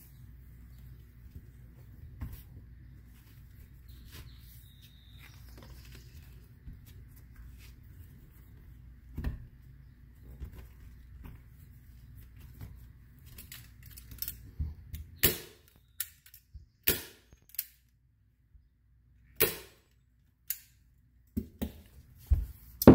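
Hand staple gun firing a series of sharp snaps, about half a dozen a second or two apart, in the second half, fastening a black leather wrap to a bull horn. Before that, only a low steady hum and faint handling of the leather.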